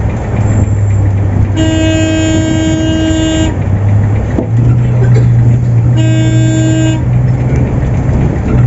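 Bus horn sounding twice, a long blast of about two seconds and then a shorter one of about a second, over the steady hum of the Volvo 8400 city bus's diesel engine, which steps up in pitch about halfway through.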